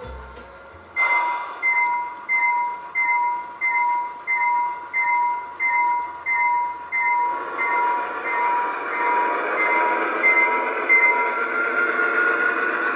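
Bell of a sound-equipped large-scale model Dash 9 diesel locomotive ringing about one and a half times a second; it starts about a second in and stops shortly before the end. From about halfway the locomotive's running noise builds as it passes close, with a rising tone near the end.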